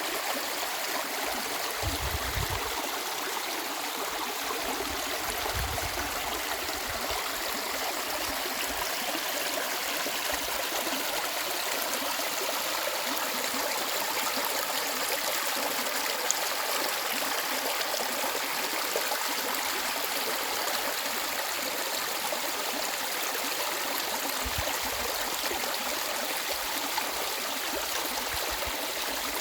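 Mountain valley stream: clear water running and gurgling over rocks, a steady, even rush.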